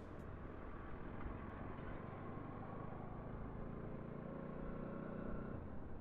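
Bajaj Pulsar NS 200 motorcycle's single-cylinder engine running at low road speed, a steady engine note that eases off near the end.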